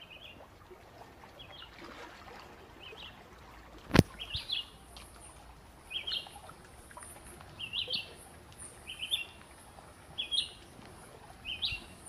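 A songbird chirping: short clusters of quick, high notes repeated about once a second, some in pairs. A single sharp click about four seconds in is the loudest sound.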